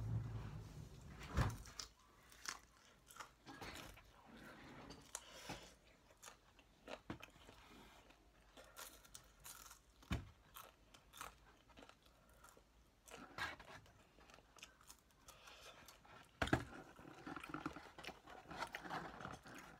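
Close-up chewing of crispy honey-glazed fried chicken, with irregular crisp crunches as the coating breaks; the sharpest bites come about a second and a half in and again near the end.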